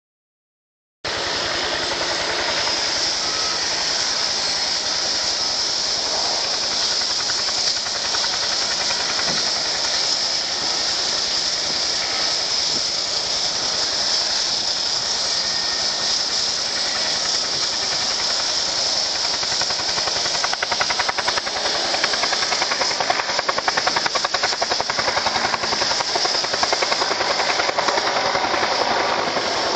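Turbine helicopter running on the ground with a steady high hiss, its rotor beat growing louder and more uneven from about twenty seconds in as it lifts off into a low hover.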